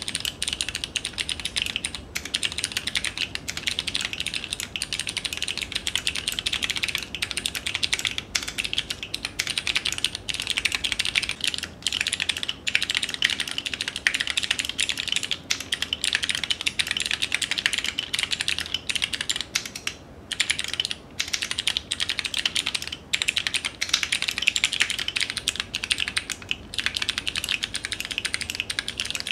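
Continuous fast typing on a mechanical keyboard fitted with a set of blank Keycraft keycaps: a dense stream of key clacks broken by a few short pauses.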